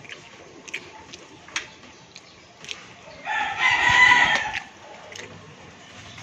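A rooster crowing once, about three seconds in, for about a second and a half. A few faint clicks come before it.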